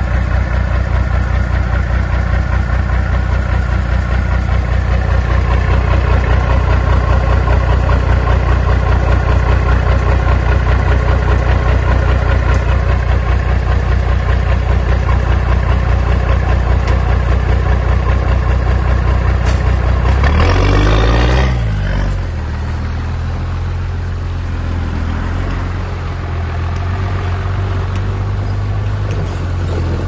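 Bulldozer's diesel engine running hard and steady, then about two-thirds of the way through its pitch falls and it settles to a lower, quieter note, with a short burst of harsher noise as it comes down.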